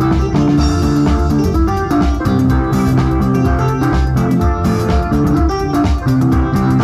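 Loud recorded music with plucked guitar lines over bass and a steady beat.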